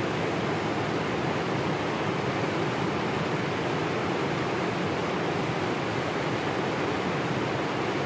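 River water pouring over a low weir in a heavy flow: a steady, even rushing.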